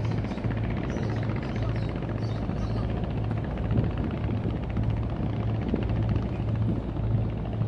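Boat engine running steadily, a deep even hum.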